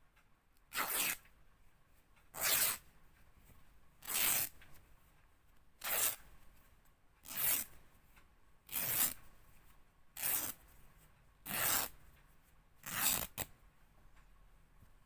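Fabric being ripped in short, separate tears, nine in all, spaced about a second and a half apart, each lasting about half a second.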